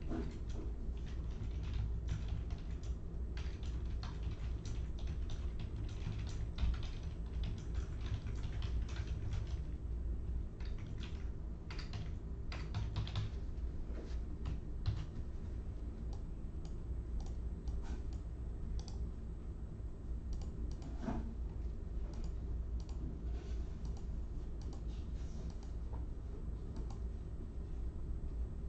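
Irregular light clicking of typing on a computer keyboard, over a steady low hum.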